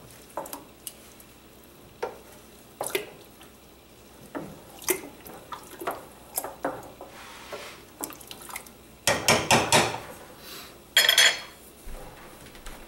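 Wooden spoon stirring thick crushed tomato sauce in a stainless steel pot, scraping and knocking against the pot's sides. A run of louder knocks comes about nine seconds in, then a sharp, ringing clack about eleven seconds in.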